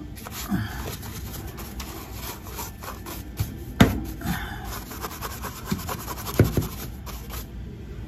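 A bristle brush scrubbing over the plastic casing of an intruder-alarm motion detector and the wood around it, dusting off cobwebs: continuous rasping with a few sharp knocks, the loudest about four seconds in.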